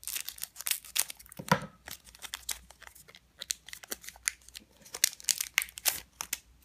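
Scissors snipping open a foil Pokémon booster pack, then the foil wrapper crinkling and crackling as the stack of cards is pulled out of it.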